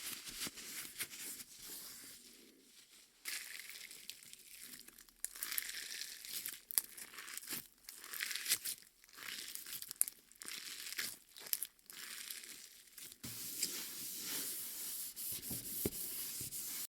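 Homemade slime being pulled and squished by hand, giving irregular sticky crackling and tearing sounds, denser and steadier near the end.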